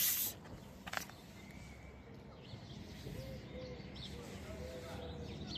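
A dove cooing in a short series of even, low notes in the second half. A brief rustling burst at the very start is the loudest sound, and a click follows about a second in.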